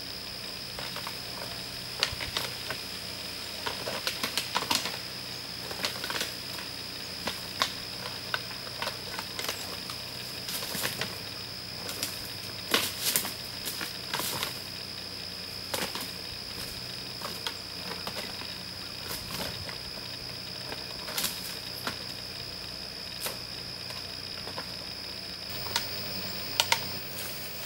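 Whitetail buck rubbing and thrashing his antlers against a sapling and branches: irregular clicking, scraping and snapping of wood in short clusters, with leaf rustle. This is a pre-rut antler rub, the buck marking the sapling as a sign-post for other deer.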